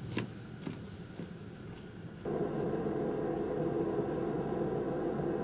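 A couple of faint knocks, then about two seconds in a Scania truck's diesel engine idling, a steady hum.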